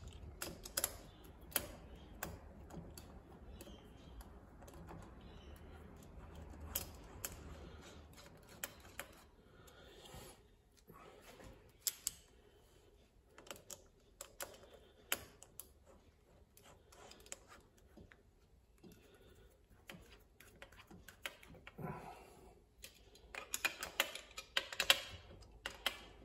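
Irregular light clicks and taps of a screwdriver working small screws and metal parts on a milling machine head, with a quick flurry of clicks near the end.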